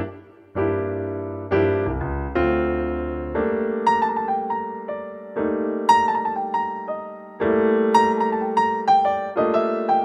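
Background piano music: slow chords that are struck and left to ring, with a melody of single notes above them.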